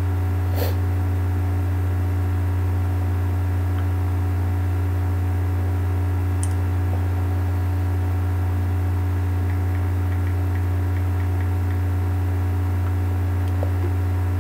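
Steady low electrical hum with no change in level, with a couple of faint clicks.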